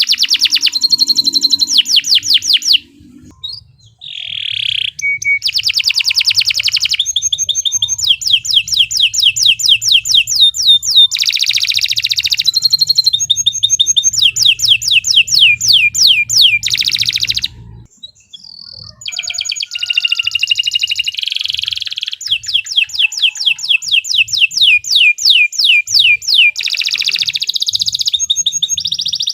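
Domestic canary singing a long, loud rolling song: fast trills of rapidly repeated sweeping notes, changing from one trill to the next, with two short pauses, about three seconds in and about eighteen seconds in.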